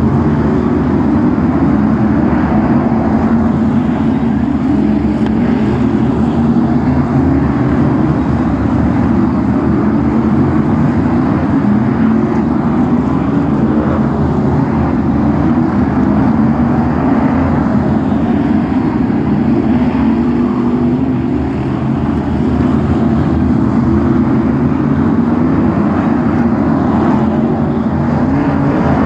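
Several F1 stock cars' V8 engines racing together on a short oval, loud throughout, their engine notes rising and falling again and again as the cars accelerate and lift off round the bends.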